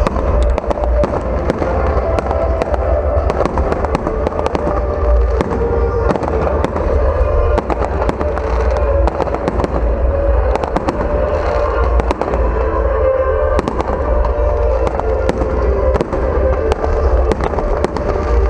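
Fireworks display: a dense, continuous run of bangs and crackles from bursting shells, over a heavy low rumble.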